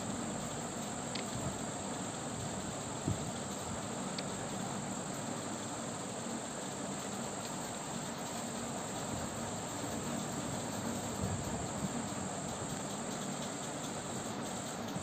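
Steady high-pitched background hiss, with a few faint clicks of metal knitting needles and a soft knock about three seconds in as purl stitches are worked.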